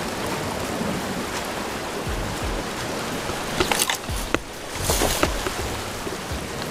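A surf rod with a conventional reel being cast: a few sharp clicks and knocks as the rod and reel are handled about three and a half seconds in, then a brief whoosh about five seconds in as the rod is swung through. A steady wash of surf runs underneath.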